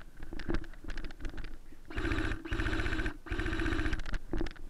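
Airsoft electric rifle firing three rapid full-auto bursts, a fast even mechanical rattle of the gearbox cycling, in the second half. Before them come scattered sharp clicks.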